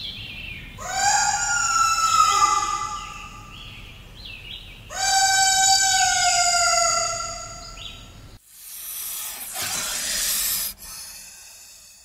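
Two long, drawn-out animal calls, each sliding slightly down in pitch, followed after an abrupt cut by a hiss of about two seconds.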